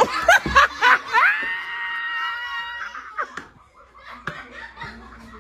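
Children laughing and shrieking, with one high-pitched scream held steady for nearly two seconds starting about a second in; after that it falls away to scattered quieter sounds and a single knock.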